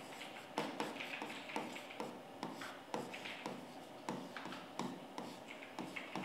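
Stylus writing by hand on an interactive touchscreen board: faint, irregular taps and short scrapes of the pen tip on the screen, about two a second.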